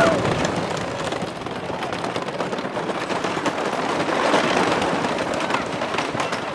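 Roller coaster train running fast along its wooden track, a dense, rapid rattling clatter.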